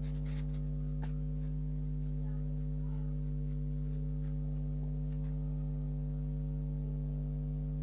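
A steady low hum made of several held tones, unchanging in pitch and loudness.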